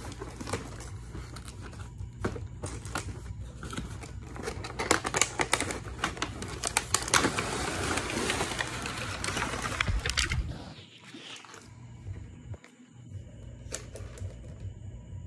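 Cardboard toy-train-set box being opened by hand: a run of sharp taps and clicks as the lid is worked loose, then a few seconds of cardboard sliding and scraping as the lid is pulled off, stopping about ten seconds in, followed by lighter handling.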